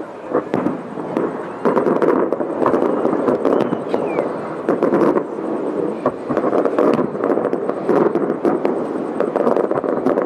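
Aerial fireworks bursting over and over: sharp bangs and crackles in quick succession, coming thicker and louder from about two seconds in.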